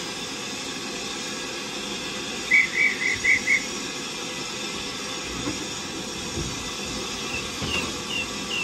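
Class 5 steam locomotive giving off a steady hiss of steam, with no regular exhaust beats. About two and a half seconds in, a quick run of five short high chirps is the loudest sound, and softer, falling chirps follow near the end.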